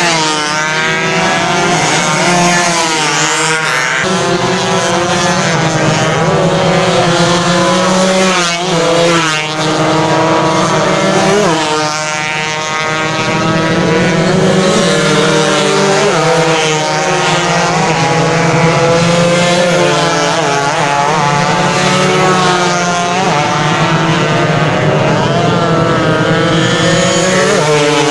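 A pack of 120cc two-stroke underbone racing motorcycles revving hard around the circuit, several engine notes rising and falling over one another as riders accelerate, shift and brake for corners.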